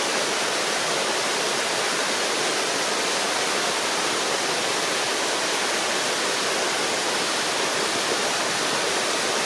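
Mountain stream cascading over rocks in a small waterfall: a steady rush of falling, splashing water.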